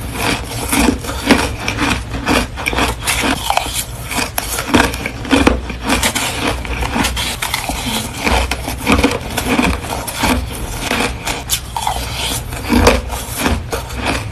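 Crushed ice being chewed close to the microphone: a loud, continuous run of crisp crunches, several a second.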